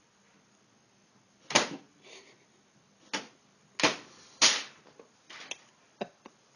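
A series of sharp knocks or slaps at uneven intervals: four loud ones, then a few fainter ticks near the end.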